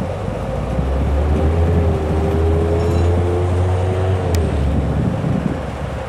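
EMD switcher locomotives' diesel engines running as the pair pulls a string of tank cars slowly along. About a second in, the deep engine rumble swells with a rising whine; after about four seconds it eases back.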